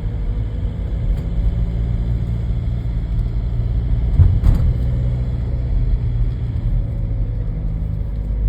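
Ford Galaxy 1.9 TDI four-cylinder turbodiesel driving along in third gear under Tiptronic manual control, a steady low engine and road rumble. A brief knock comes about four seconds in.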